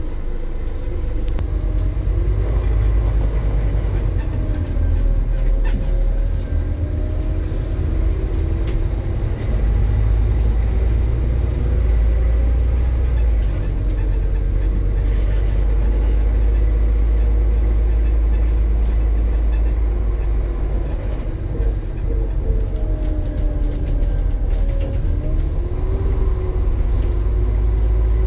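Scania N230 bus's engine running while the bus is moving, over a steady low rumble. Its pitch rises and falls several times as the bus accelerates and eases off.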